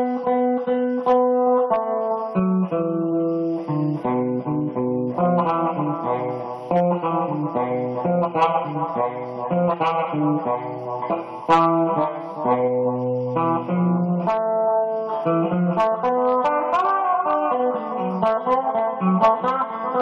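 Instrumental music led by a plucked guitar playing a quick run of notes over lower bass notes.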